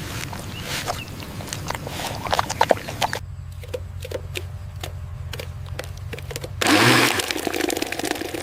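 A small engine runs with a steady low hum and even knocking, about three knocks a second. About seven seconds in, a loud rush of noise comes in over it.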